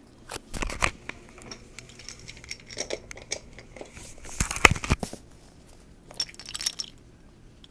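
A wooden toy train engine being handled and turned over: scattered clicks, knocks and rustling, with a louder cluster of clatter a little past the middle.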